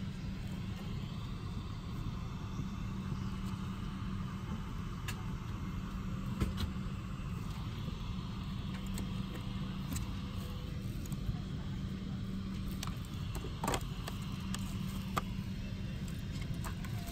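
Steady cabin noise inside a Boeing 777-200: a low rumble with a constant hum. A few light clicks and knocks come from handling the seatback fittings and tray table.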